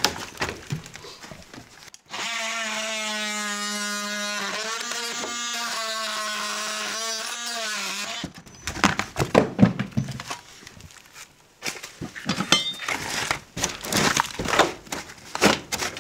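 Cordless oscillating multi-tool running for about six seconds, starting about two seconds in, as it cuts the strapping on a wall's bottom plate; its pitch wavers as the blade loads. Before and after it come irregular knocks and crunches of rotted wood and debris being pulled out by hand.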